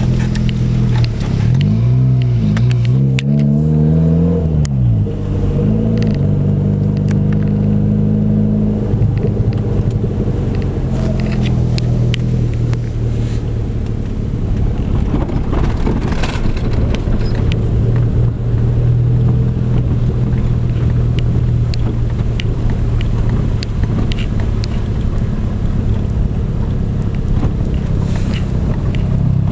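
Car engine running while driving, heard from inside the cabin as a steady drone. Its pitch dips and rises a couple of seconds in as the car slows and picks up speed again. Occasional faint clicks sound over it.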